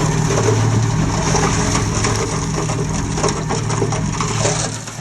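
Komatsu D20P bulldozer's diesel engine running under load, with dense crunching and clattering of stone as the machine pushes rock fill. The engine hum is strongest in the first half second and is then largely covered by the irregular crackle of the rocks.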